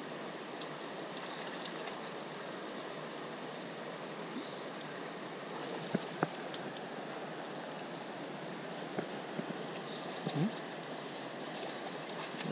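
Creek water running steadily, with a few short clicks and knocks around the middle and near the end.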